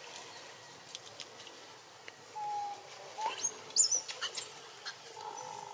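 Young macaque giving a quick string of short, high-pitched squeals about halfway through, with a few faint clicks before them.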